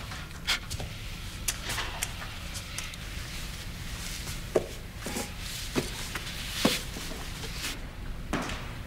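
Scattered footsteps and small knocks and clicks in a quiet room, over a low steady hum; the strongest knocks come about halfway through and again a second or two later.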